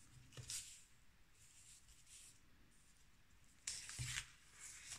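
Faint rustling of paper as the pages of a handmade art journal are handled and turned, once just after the start and again, a little louder, about four seconds in; otherwise only quiet room tone.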